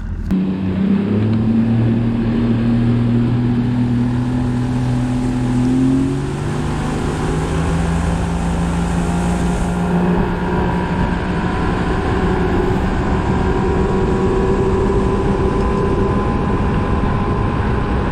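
Bass boat's outboard motor running at speed on a run down the river, its pitch climbing over the first several seconds and then holding steady.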